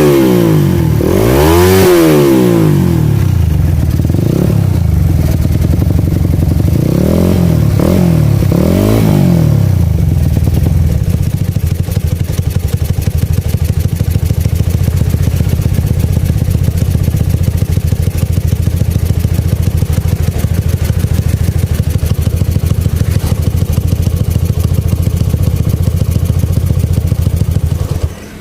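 Motorcycle exhaust through a Lone Rider Akap 8 carbon-kevlar aftermarket silencer. The engine is revved in several throttle blips over the first ten seconds, then settles into a steady idle, and is shut off just before the end.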